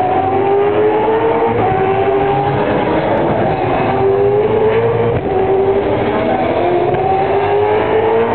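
V8 Supercar race cars' 5.0-litre V8 engines accelerating hard through the gears. The engine note climbs in pitch and drops back at each upshift, roughly every two seconds.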